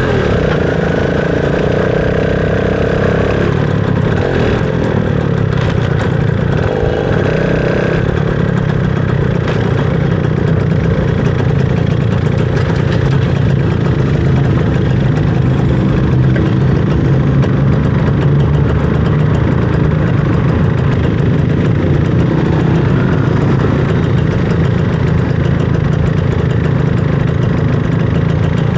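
Motorcycle engine running steadily. A higher whine joins briefly at the start and again about seven seconds in.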